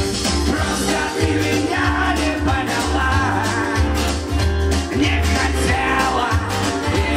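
A man singing a chanson-style pop song into a microphone over amplified backing music with a steady, pulsing bass beat.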